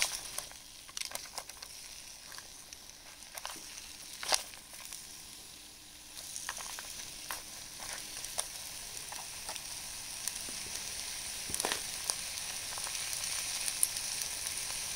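Vegetables sizzling as they stir-fry in an aluminium tray over a charcoal shichirin, a steady hiss with scattered sharp clicks and ticks. The sizzle fills out about halfway through.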